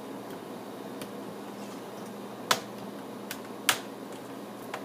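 Plastic snap clips of an Acer Aspire E1's screen bezel clicking loose as the bezel is pried off the back cover. There are two sharp clicks about a second apart past the middle, with a few fainter ones around them.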